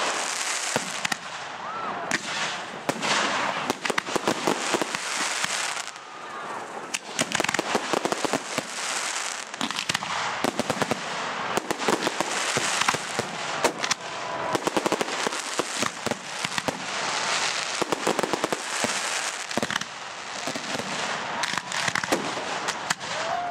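Fireworks going off in a dense, continuous barrage of crackling and popping, with surges of hissing between the volleys.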